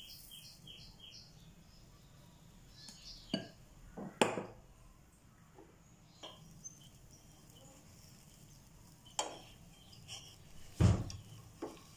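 A few separate knocks and clinks of kitchen utensils as a ladle is set down and a flat spatula picked up beside a pancake pan; the loudest come about four seconds in and near the end. A bird chirps quickly over the first second or so.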